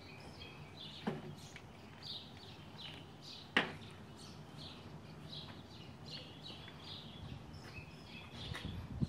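Small birds chirping over and over, with two sharp clicks from handling a plastic vinegar bottle, the louder one about three and a half seconds in.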